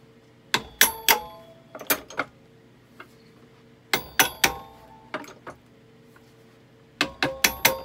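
Hammer tapping a silverware fork held in a bench bender press, curling it over on itself into a snail coil: sharp metallic taps that ring briefly, in quick groups of two to four, several groups in all, the last group near the end.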